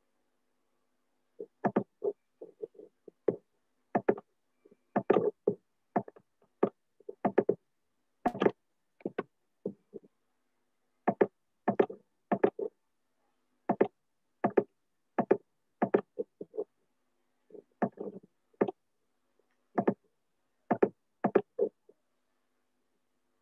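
Computer mouse clicks, many in quick double-click pairs, picked up by a video-call microphone, with a faint steady hum underneath.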